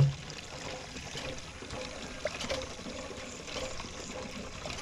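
Water pouring from a borehole hand pump's spout into a plastic jerrycan as it fills, a steady stream.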